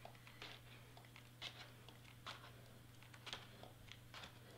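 Faint handling sounds of hot-gluing cardstock: about five soft rustles and light clicks spread out, as the stiff paper is moved and the glue gun is worked. A steady low hum lies underneath.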